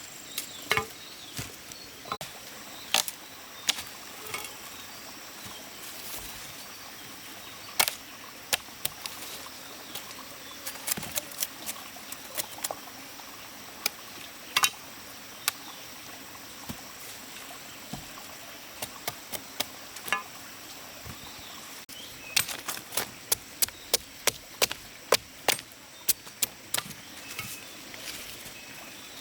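Sharp knocks or chopping strikes at irregular intervals, with a quicker, more regular run of them about three-quarters of the way through, over a steady background hiss.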